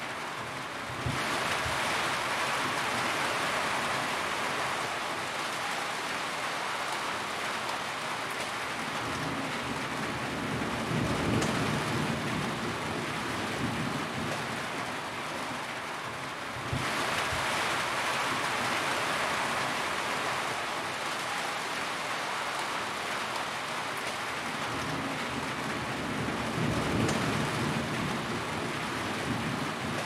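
Steady rain falling on a metal roof, a dense, even patter that jumps louder abruptly about a second in and again about 17 seconds in. A low rumble swells twice, around 11 and 27 seconds in.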